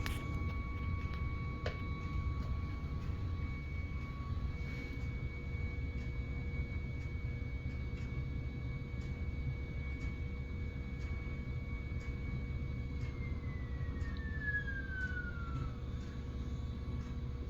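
Geared NEMA 17 stepper motor driving a 3D-printed harmonic drive telescope mount, whining steadily as the mount slews. Near the end the whine's pitch falls over a few seconds as the motor slows down.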